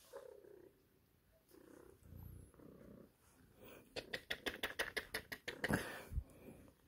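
Calico cat purring softly as it is stroked, with a run of scratchy rustling from the hand rubbing its fur close to the microphone, starting about four seconds in.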